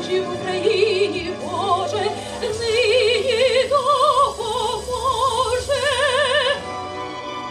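A woman singing a Ukrainian-language lament solo, with long held notes and a wide vibrato, over sustained instrumental backing. Her voice stops about a second before the end while the backing chord holds on.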